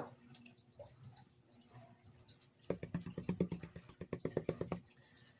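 Water dripping and swishing in a plastic gold pan as it is handled, with a click at the start and about two seconds of rapid, evenly spaced rattling in the middle, about ten a second.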